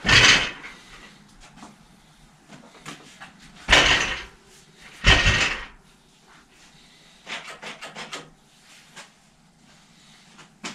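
Bicycle clattering and rattling as it is handled on the workshop floor: three loud clanks, one right at the start, one near four seconds in and one about a second after that, then a run of fainter clicks.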